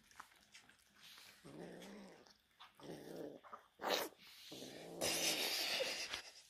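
Devon Rex kitten growling low over a piece of raw meat, in several drawn-out growls, the longest near the end. A short sharp noise about four seconds in.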